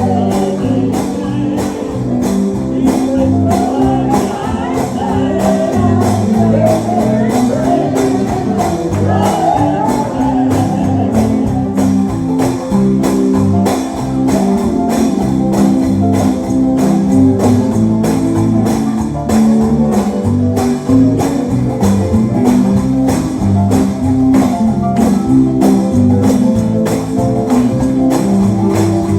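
Live gospel music: a tambourine shaken and struck in a steady beat over strummed guitar and sustained chords, with voices singing mostly in the first third.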